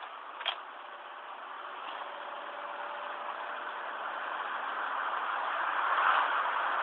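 Ford 5.4 L three-valve Triton V8 in a 2005 Expedition running at idle, growing steadily louder. The rough idle comes with VCT solenoid fault codes (P0012, P0022, over-retarded cam timing), which the owner puts down to failing VCT solenoids.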